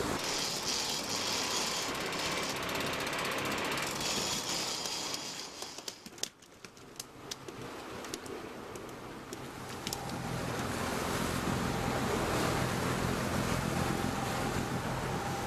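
A sport-fishing boat under way: a steady rushing noise that falls away about six seconds in, with a few sharp clicks, then a steady low engine drone from about ten seconds in.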